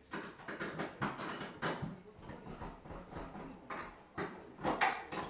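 A series of irregular knocks and clicks from hard objects being handled, the loudest a little before the end.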